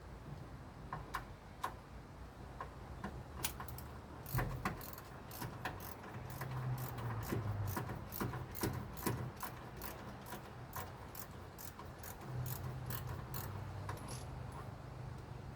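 Socket ratchet wrench clicking in quick runs of sharp clicks as a spark plug is backed out of the engine.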